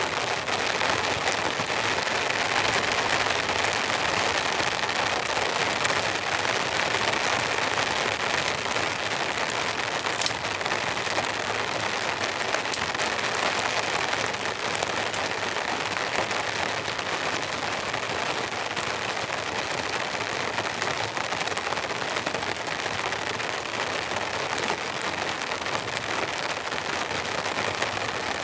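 Steady rain falling, an even dense hiss with a few faint ticks.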